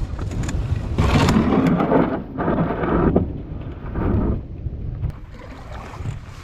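Thunder rumbling in a thunderstorm, with rain falling; it swells loudest several times in the first four or so seconds, then eases off.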